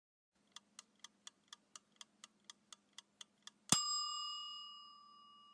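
Countdown timer sound effect: about a dozen quick ticks, roughly four a second, then a single bell ding that rings on and fades out.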